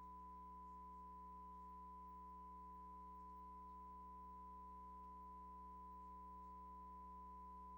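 Faint steady 1 kHz reference tone of the kind played with broadcast colour bars, over a low electrical hum.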